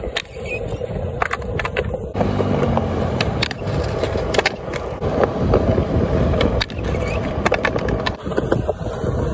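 Skateboard on concrete: wheels rolling, sharp clacks of the board popping and striking, and the deck scraping along a concrete ledge in a noseslide. Near the end the board clatters onto the ground after a missed nollie heelflip out.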